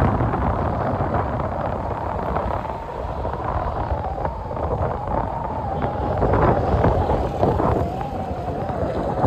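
Wind buffeting the microphone over a boat engine's low drone, with a faint steady whine that wavers slightly in pitch.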